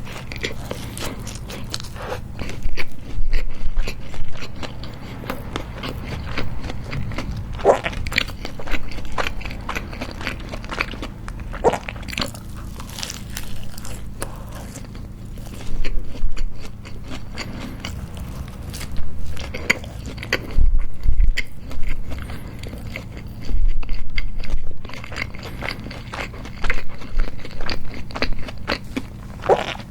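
Close-miked biting and chewing of homemade hamburgers on toasted, crisp buns, with louder crunching bites coming every few seconds over a steady low hum.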